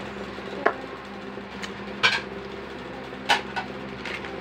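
Three sharp clicks and knocks of small hard objects being handled and set down, over a steady background hum.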